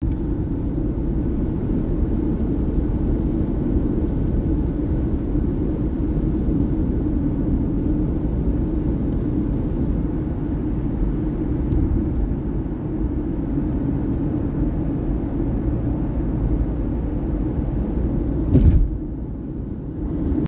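Steady low rumble of a car driving at highway speed, heard from inside the cabin, with one brief louder thump near the end.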